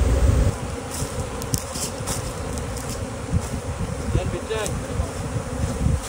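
Swarm of honeybees buzzing around a wooden hive box entrance, a steady hum with individual bees zipping past. Wind rumble on the microphone fades in the first half second.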